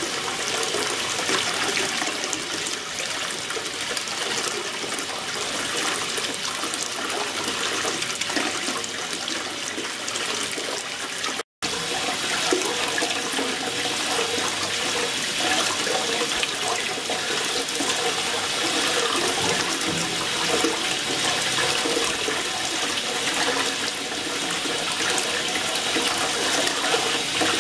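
Water churning and sloshing in an ultrasonic tank, with the transducers and liquid circulation running. It is a steady, dense hiss with a few faint steady tones in it, broken once by a brief dropout about eleven seconds in.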